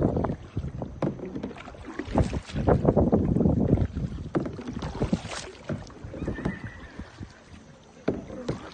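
Paddle strokes splashing in river water, with wind rumbling on the microphone; loudest about two to four seconds in.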